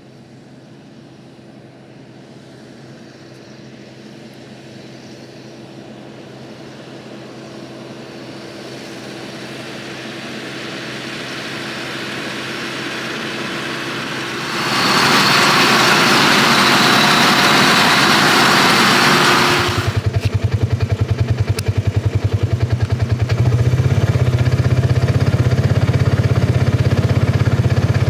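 John Deere 6150 tractor running while baling hay with a round baler, growing gradually louder. About halfway through, a loud rushing noise cuts in for about five seconds and stops suddenly. A heavy, fast, low pulsing follows.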